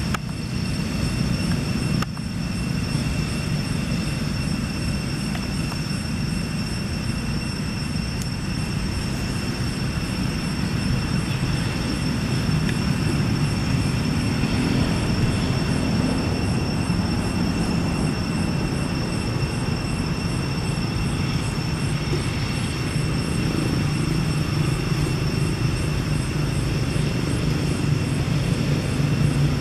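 Steady low outdoor rumble with a constant thin high-pitched whine over it.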